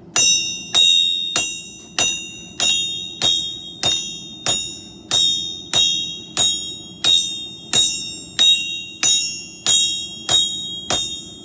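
Hammer striking a piece of steel to flatten it, a steady series of about eighteen blows, roughly three every two seconds, each leaving a bright metallic ring that dies away before the next.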